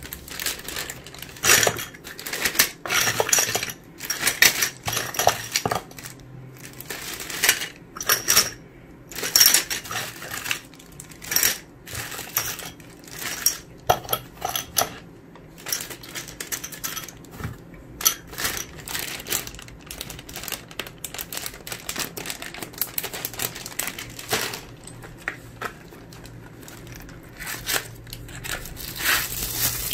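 Small GoPro mounting parts (screws, clips and mounts) clinking and rattling inside plastic zip bags as they are handled, with the bags crinkling. The clatter is irregular, busier in the first half and sparser later.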